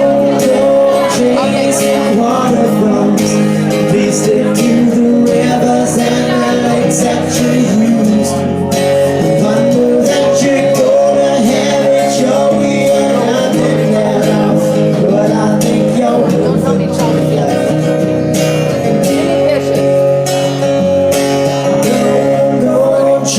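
Karaoke backing music with guitar, and some singing over it.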